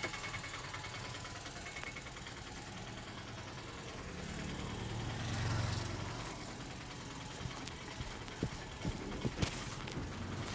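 Motor vehicle engine running, its low hum swelling about halfway through as it passes close, then fading. Several short sharp taps come near the end.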